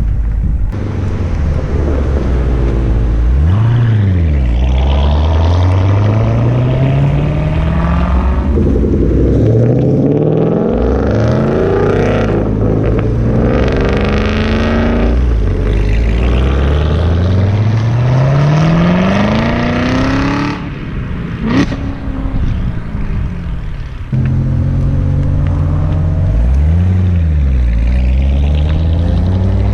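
C7 Corvette Z06's supercharged 6.2-litre V8 revving and pulling hard through its exhaust, the pitch rising and falling. It gives quick blips about 4 s in and near the end, and a long rising pull that cuts off suddenly about two-thirds of the way through, followed by a sharp crack.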